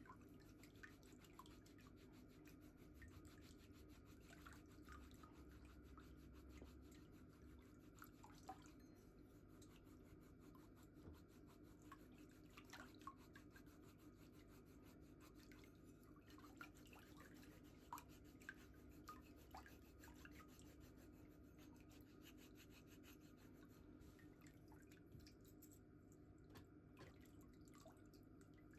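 Faint rubbing of a metal foot file scraping callused heel skin, with small scattered ticks over a low steady hum.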